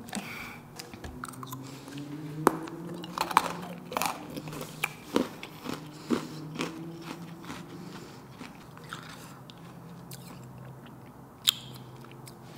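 Close-up chewing and crunching of small frozen ice-cream balls, with scattered sharp crunches and clicks, most of them in the first half and one more near the end. A faint low hum runs underneath.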